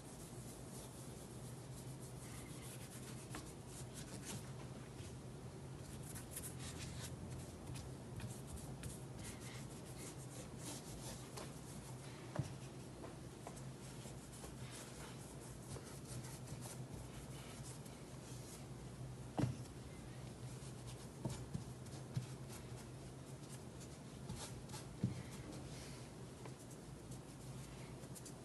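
Faint rubbing and scrubbing of a cloth on an antique electric motor's base as old grease is wiped off with WD-40 and degreaser, with a few light knocks and a steady low hum underneath.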